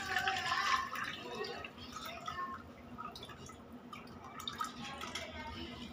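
Milk being poured in a thin stream from a tilted stainless-steel milk can through a small strainer into a steel pan, a quiet liquid trickle, a little stronger in the first second or so.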